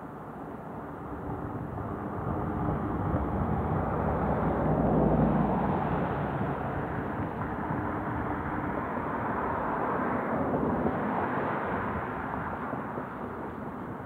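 Road traffic passing: vehicles go by with a rising and falling rush, loudest about five seconds in and again around ten seconds in.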